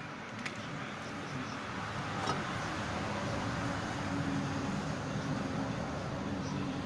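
A steady vehicle-like rumble with road noise, slowly growing louder.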